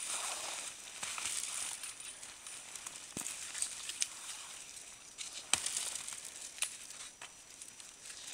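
A person on skis with poles forcing a way through dense bare brush in snow: steady swishing and crunching of snow and branches scraping against clothing and pack, with several sharp snaps and clicks of twigs and poles.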